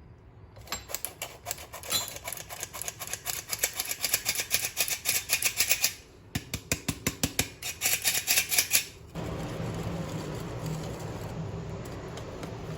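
Rapid, even clicking of a whisk beating cake batter against the side of a bowl, about five to six strokes a second, with a short pause near the middle. About nine seconds in the clicking stops and a steady noise takes over.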